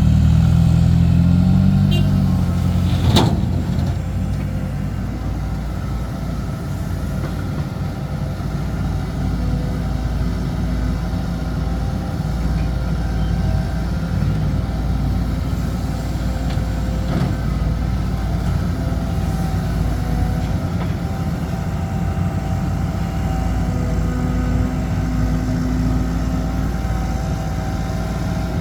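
Heavy diesel dump truck engine running, loudest for the first few seconds, then settling into a steady lower drone. A single sharp knock comes about three seconds in.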